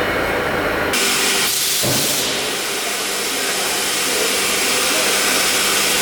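Nesting CNC router cutting wood-based cabinet panels, a steady loud hiss of the spindle and cutter with the machine's hum underneath; the sound changes about a second in from a lower rumble to a brighter, even hiss.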